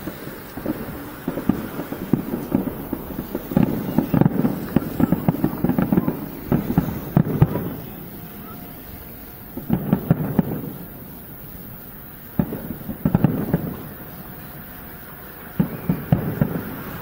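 Aerial firework shells bursting in rapid volleys of dull bangs, heard from over a kilometre away. The bangs come almost without a break for the first half, then in short volleys every two to three seconds.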